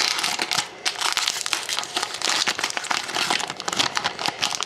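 Foil trading-card pack wrapper being torn open and crinkled by hand, a dense run of crackles throughout.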